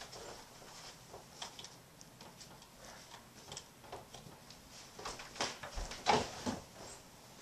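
Handling noises: scattered light clicks, knocks and rustling as an upright vacuum cleaner's power cord is unwound and dragged and someone moves about on carpet. The knocks come thicker and louder near the end.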